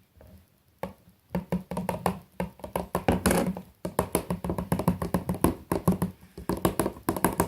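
Rapid run of knocks and taps as stiff, freshly set slime is worked and scraped in its container. The knocks start about a second in and carry on almost without a break.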